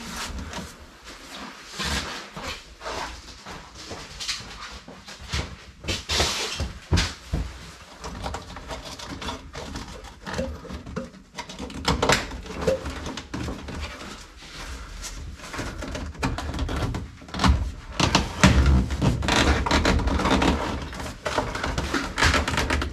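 Handling noise of brittle, decades-old plastic trim being worked over the lip of a classic Mini's metal dash rail: irregular knocks, clicks and rustles, with a run of heavier thumps and rustling near the end.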